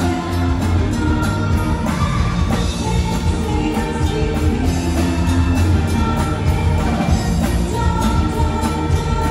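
Amplified live band playing a song: electric guitars and bass under a steady beat, with singers holding long notes.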